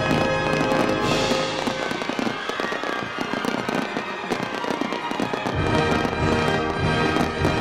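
Fireworks bursting and crackling over music, with a bright crackling burst about a second in.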